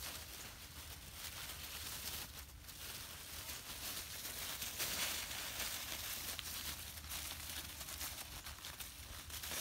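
Dry fallen leaves rustling and crunching as puppies run and tumble through them, a dense crackle of small crunches that is loudest about halfway through.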